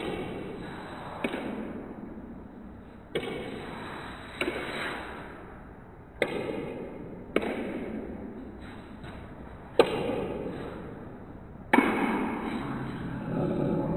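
Table tennis ball knocking off paddles and the table during a rally, slowed down in slow motion: about eight sharp knocks spaced one to two seconds apart, each trailing off in a ring, the loudest two late on.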